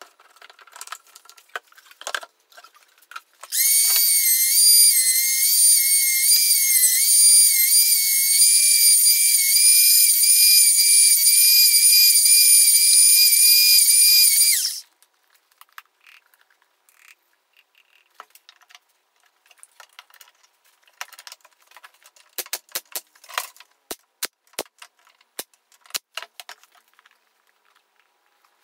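Benchtop power tool, a thickness planer by the picture, running for about eleven seconds as a loud, high-pitched whine whose pitch wavers up and down, thinned and raised by the fast-forwarded footage. Before and after it come scattered light clicks and knocks of wood and clamps being handled.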